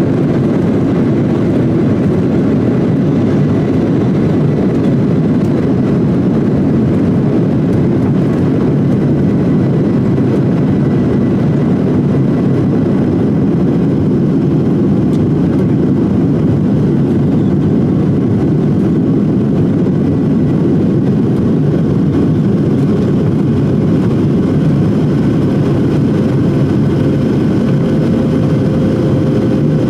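Airliner engines and airflow heard from inside the passenger cabin as a steady, unchanging noise, with faint steady high tones above it.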